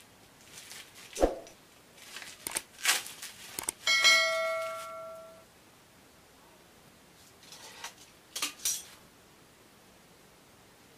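Unwrapping a boxed speaker from bubble wrap: plastic crinkles and knocks, with a sharp thump about a second in. About four seconds in, a bright metallic ring dies away over about a second and a half. A few more crinkles follow near the end.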